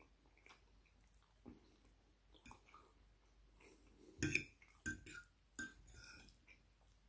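Metal fork clinking and scraping against a ceramic plate of rice, a few sharp clinks between about four and six seconds in, the first the loudest.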